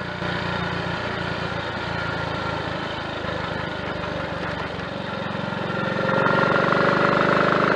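Triumph Tiger Cub's single-cylinder four-stroke engine running on the road. The throttle is eased at the start, then opened again about six seconds in, the note rising and getting louder. It runs without misfiring on its new carburettor slide, needle, needle jet and main jet.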